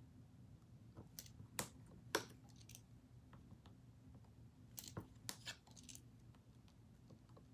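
Faint handling of small paper ballots being filled out: a few soft clicks and rustles over near silence, two sharper ones about two seconds in and a short cluster around five seconds.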